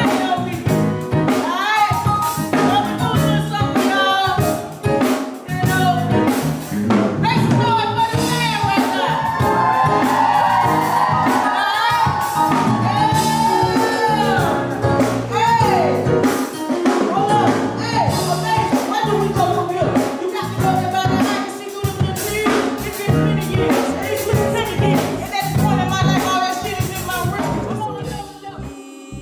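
Live band of electric bass, drum kit and keys playing a neo-soul hip-hop groove, with a singing voice holding long, bending notes over it. The music drops in level near the end.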